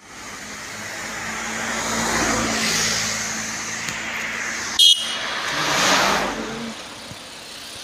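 Road traffic: vehicles passing by, their noise swelling and fading twice over a low engine hum. A short, loud high beep cuts in about halfway through.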